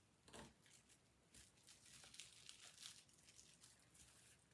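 Faint, intermittent rustling and crinkling of paper sewing-pattern pieces as hands slide and smooth them flat to line up their notches.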